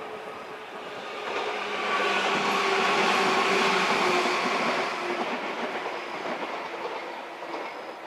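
A JR 103 series 3500 electric train passing close by, growing louder to a peak about two to four seconds in and then fading as it moves away.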